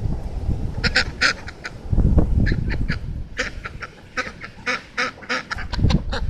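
Ducks quacking, a rapid string of short, sharp calls, with wind buffeting the microphone in low gusts.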